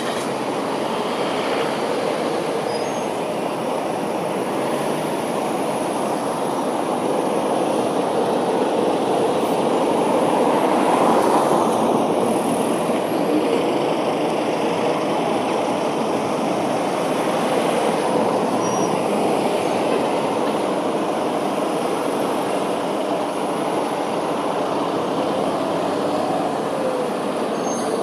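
Street traffic: the engines and tyres of queued and moving cars, vans and a lorry make a steady noise that swells about ten seconds in.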